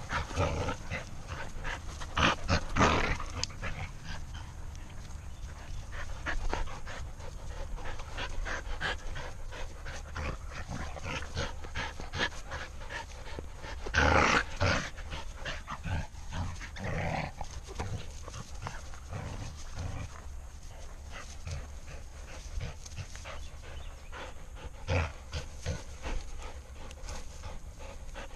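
Dog panting, with scattered short clicks and scuffs and a couple of louder bursts about two seconds in and halfway through.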